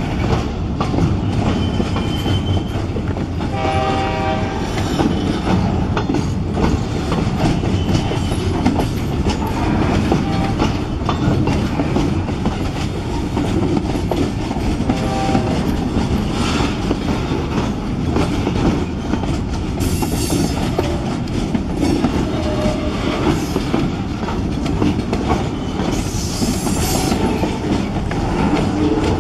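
Freight cars loaded with logs rolling past on the rails: a steady heavy rumble with wheels clattering over rail joints. Brief tonal squeals come a few seconds in and again midway, and short high screeches near the end.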